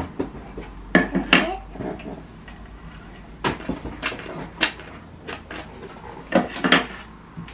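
Small hard-plastic parts of a Baby Alive Magic Mixer toy blender clicking and clattering as they are pulled apart and handled, with the jar knocked down onto the table. The sharp clicks and knocks come in clusters, about a second in, through the middle and near the end.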